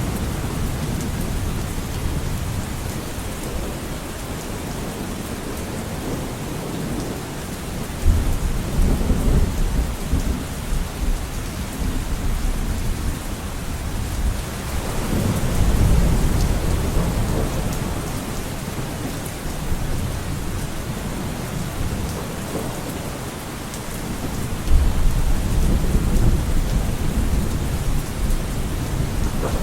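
Steady rain falling, with low rolling rumbles of thunder that swell three times: about a quarter of the way in, around the middle, and near the end.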